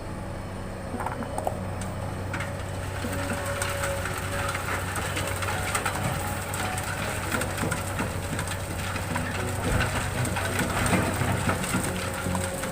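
Komatsu PC200 excavator's diesel engine running with a steady low hum. From about two seconds in, a dense gritty crackle of sand being worked joins it.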